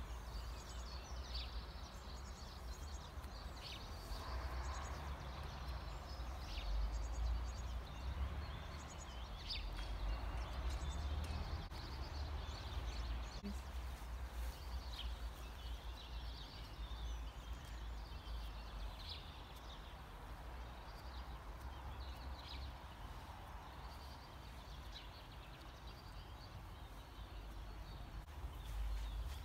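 Outdoor garden ambience: a steady low rumble of wind on the microphone, with small birds chirping on and off throughout.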